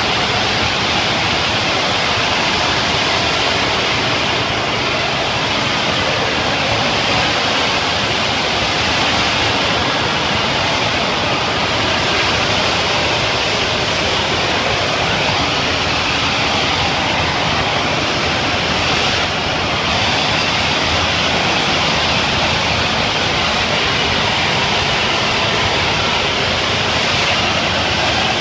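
Pressure washer spraying water from a wand lance against a wall: a loud, steady hiss with a short dip a little past halfway.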